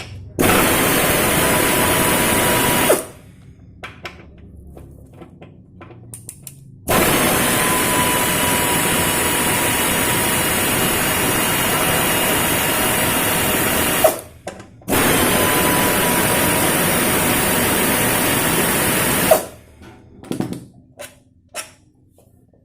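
Power tool run in three long bursts, the first about 3 seconds and the next two several seconds each, undoing the front brake caliper's mounting bolts on the fork bottom tube.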